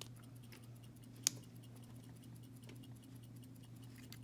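Small metal parts of a disassembled padlock clicking and ticking faintly as they are worked with a tool, with one sharper click about a second in, over a steady low hum.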